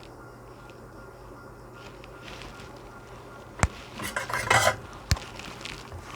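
Small metal tools clinking on a repair bench: a sharp click, a brief clatter, then another click, over a faint steady low hum.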